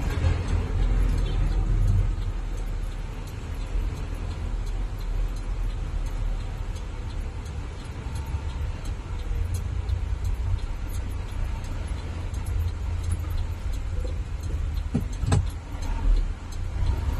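Steady low rumble of an engine and road noise heard from inside the vehicle's cab while crawling in heavy traffic. A couple of sharp clicks sound about fifteen seconds in.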